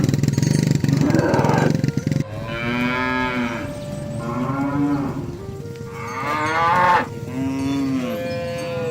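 Cattle mooing: a rough, buzzing sound for about the first two seconds, then four drawn-out moos one after another, each rising and then falling in pitch.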